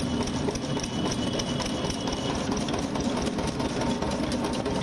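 Belt-driven sugarcane juice machine running, its geared steel rollers crushing sugarcane stalks with a steady, rapid mechanical clatter over a low hum.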